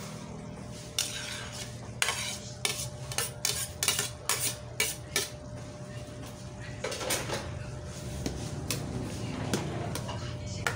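A metal utensil clinks and scrapes against a ceramic plate in a quick run of about nine sharp taps, knocking the food off into a wok. Then a metal ladle stirs the thick sauce, scraping against the wok with a few clicks.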